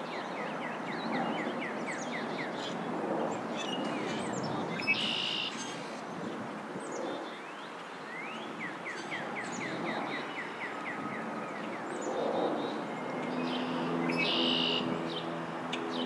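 Birds singing over a steady background hiss: twice a red-winged blackbird's buzzy trill, plus two runs of about ten quick repeated notes from another bird. A low hum with several steady tones comes in near the end.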